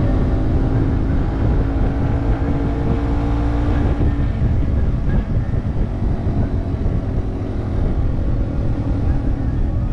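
Yamaha TW200's single-cylinder engine running as the motorcycle rides along, over a heavy low rumble. The engine note holds steady for about four seconds, then turns rougher and less even.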